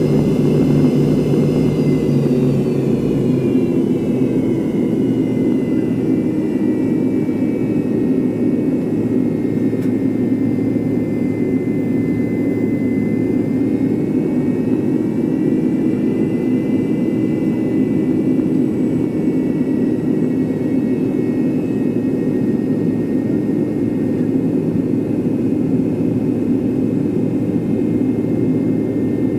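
Cabin noise from the MD-83's rear-mounted Pratt & Whitney JT8D turbofans at taxi thrust: a steady low rumble under a high engine whine. The whine falls in pitch a few seconds in, then holds steady with a slight lift midway.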